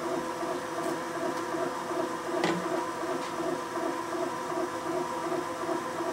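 Valve seat cutting machine running, its spinning cutter machining a newly installed hardened exhaust valve seat in a Pontiac 455 cylinder head: a steady whir that pulses evenly, with a single sharp click about two and a half seconds in.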